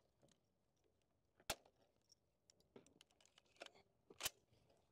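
Two suppressed gunshots, about three seconds apart, each a sharp crack with a short tail, with a few faint clicks between them.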